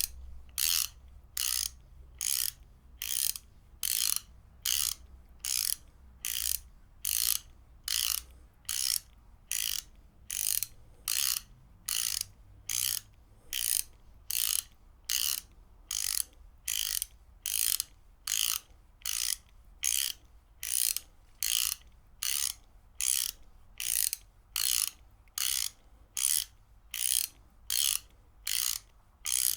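Ratchet wrench being worked back and forth, each stroke giving a short burst of rapid pawl clicks, repeating evenly a little over once a second.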